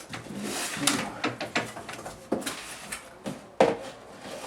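A machete blade striking and cutting into a cardboard box: several sharp knocks at irregular spacing, the loudest about three and a half seconds in, with scraping and tearing of cardboard between them.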